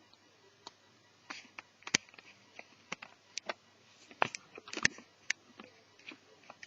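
Irregular light clicks and taps from hands handling small netbook parts during disassembly, with the sharpest clicks about two seconds in and twice between four and five seconds in.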